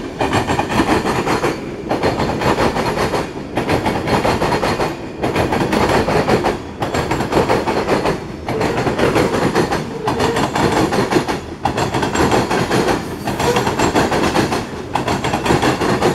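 Freight cars rolling past at close range: steel wheels running on the rails, loud and steady, with a short regular dip about every second and a half. Tank cars give way to covered hopper cars.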